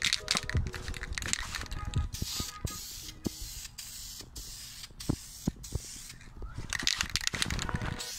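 Aerosol spray paint can hissing in repeated bursts, with short breaks between passes, as black paint goes onto a plastic motorcycle fender.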